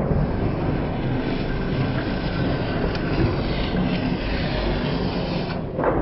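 Horizontal metal shaper cutting hardened 4140 steel: a steady scraping hiss of the tool biting the steel over the machine's low running noise, easing off about five and a half seconds in, followed by a short knock.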